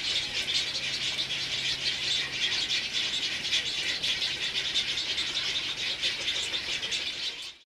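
A chorus of many birds calling at once: a dense, steady chatter of short high calls that cuts off suddenly near the end.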